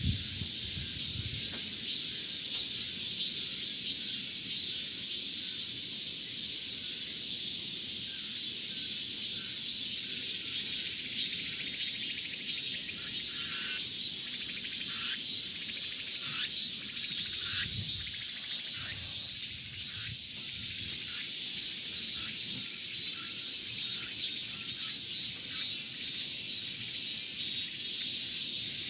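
Summer forest ambience: a steady, high insect drone fills the air, with a handful of short, sharp sounds in the middle of the stretch.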